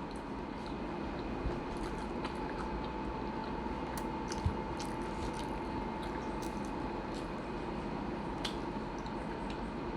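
A steady hum of room noise with a faint held tone running under it, and scattered small clicks and taps.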